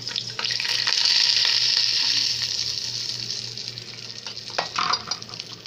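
Dry rice poured into a pot of hot oil, sizzling as the grains hit. The sizzle is strongest in the first couple of seconds, then fades. A few short knocks come near the end.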